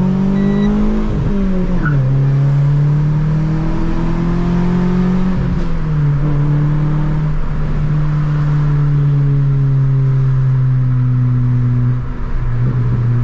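Renault Sandero RS's 2.0-litre four-cylinder engine heard from inside the cabin under acceleration: the revs climb, fall at an upshift about two seconds in, climb again and fall at a second upshift about six seconds in, then hold fairly steady with a brief dip near the end. A short high beep sounds about half a second in.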